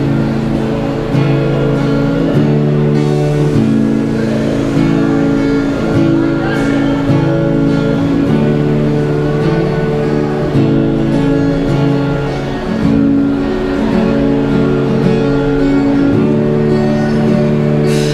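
Yamaha acoustic guitar strummed through a Roland Cube Street EX battery amplifier, playing a steady chord progression with the chords changing every second or two.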